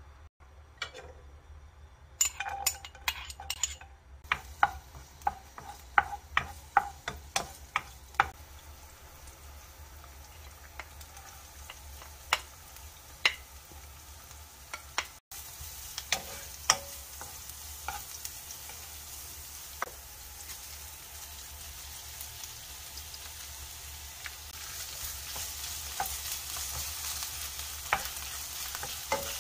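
A run of sharp clinks and taps first, as a spoon measures oil over a nonstick wok. Later, sliced scallions and garlic sizzle in hot oil while a wooden spatula stirs and taps in the pan, and the sizzle grows louder near the end.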